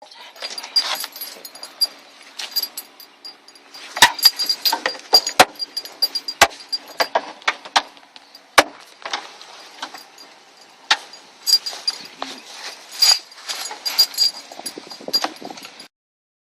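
Hand tools and plastic trim on a car door panel being worked apart: irregular clicking, rattling and sharp knocks, the loudest about four, six and a half and eight and a half seconds in. The sound cuts off abruptly shortly before the end.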